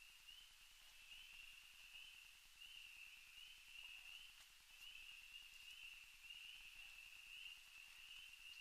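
Faint, steady high-pitched night chorus of calling animals: a continuous shrill trill made of small pulses repeating a few times a second.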